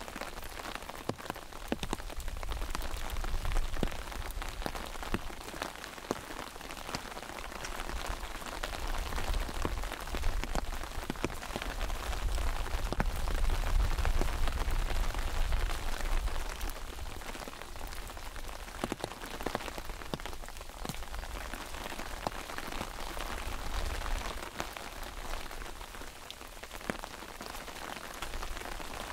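Steady rain falling on an umbrella overhead: close, distinct drop ticks over the hiss of rain all around. A low rumble underneath grows louder in the middle and eases off again.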